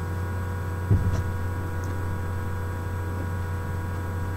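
Steady electrical mains hum with a faint hiss, and one short low thump about a second in.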